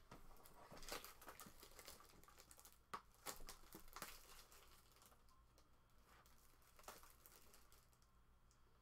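Faint crinkling of the plastic shrink-wrap on a sealed trading-card box as it is handled, with scattered crackles that are strongest a few seconds in, then fade.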